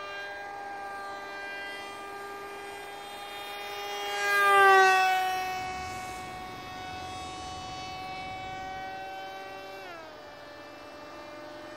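Whine of a foam-board RC plane's brushless electric motor and propeller in flight. It swells louder and drops in pitch as the plane passes close about four and a half seconds in, and the pitch drops again about ten seconds in.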